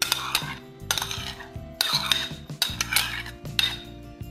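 Metal spoon scraping and clinking against a porcelain bowl and a glass bowl as thick mayonnaise is spooned out, several scrapes about a second apart, over soft background music.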